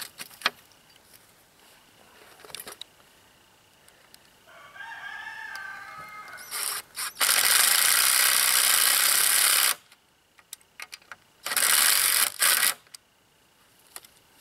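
Cordless drill driving self-tapping screws into a metal tent-frame pipe joint: two whirring bursts, a longer one about seven seconds in and a shorter one about four seconds later. A few seconds in, a wavering pitched call of about two seconds comes before the first burst.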